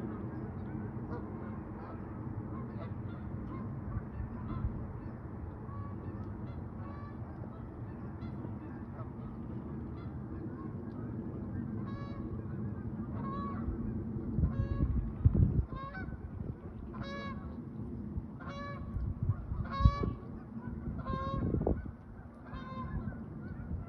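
Goose honking repeatedly in short nasal calls over a steady low rumble. The honks are faint and spaced out at first, then come louder and closer together, about one to two a second, from about halfway through. A few low thumps break in near the end.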